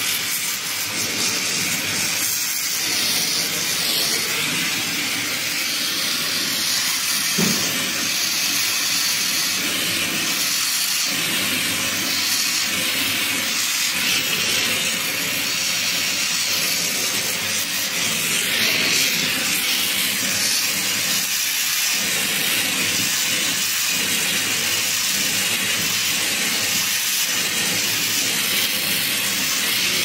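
Oxy-LPG brazing torch flame hissing steadily as it heats a copper pipe.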